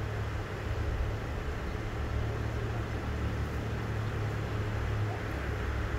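A vehicle engine idling: a steady low hum over outdoor background noise.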